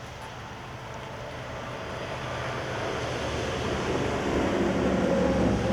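A motor vehicle approaching, its engine and tyre noise growing steadily louder, then cut off abruptly near the end.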